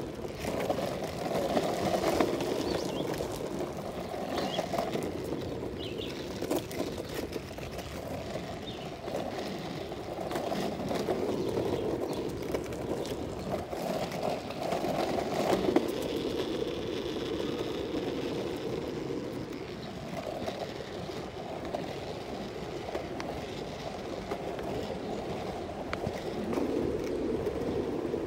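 Longboard wheels rolling along a paved path, a steady rolling noise that swells and eases with speed, with occasional sharp clicks.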